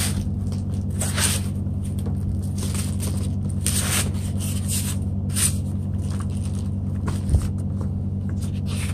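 Plastic film wrap and paper leaflets crinkling and rustling in short bursts as the wrapped digital bathroom scale and its instruction sheets are handled, over a steady low hum. There is a soft thump about seven seconds in.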